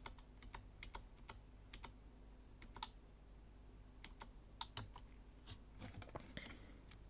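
Faint computer keyboard keystrokes, single taps at irregular intervals, pressed to step a motion track forward one frame at a time.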